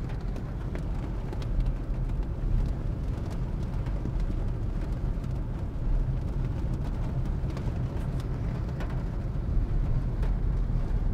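A car driving in torrential rain, heard from inside the cabin: a steady low rumble of road and engine noise, with rain striking the roof and windscreen in many scattered sharp taps.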